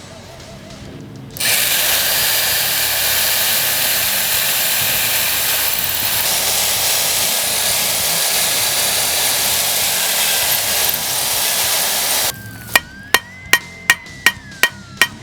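A power tool runs steadily on a wooden pole, starting about a second and a half in and cutting off suddenly near the end. Then comes a quick run of sharp taps, about three a second.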